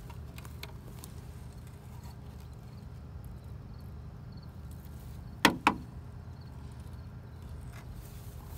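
Two sharp clicks in quick succession about five and a half seconds in, over a steady low hum.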